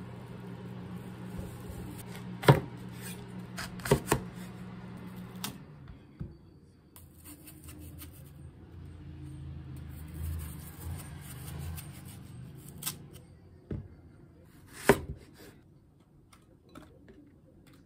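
Kitchen knife cutting an apple on a wooden cutting board: several sharp, spaced-out knocks as the blade goes through and meets the board. A low steady hum runs underneath and stops about five seconds in.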